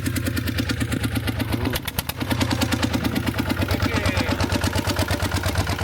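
Iron buffalo two-wheel walking tractor engine running with a steady, even putter, dipping briefly about two seconds in.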